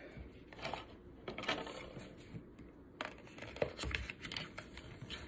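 Packaging being handled and unwrapped: irregular rustling with a few sharp clicks.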